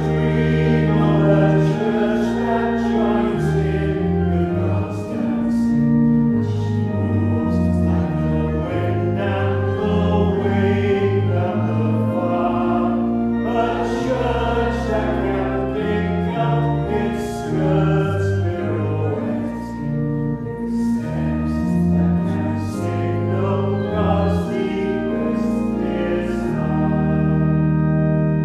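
Congregation singing a hymn together, accompanied by an organ holding sustained chords underneath.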